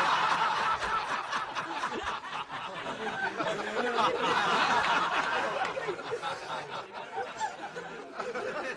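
Many people laughing together at a joke's punchline, a dense crowd laugh that swells about four seconds in and eases off toward the end.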